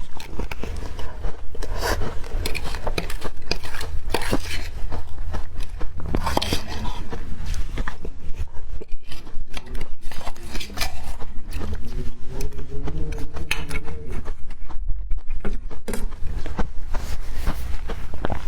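Close-miked crunching and chewing of matcha-powdered frozen ice or hard candy: dense, irregular crackling bites. Near the middle comes a brief low pitched sound, like a hum.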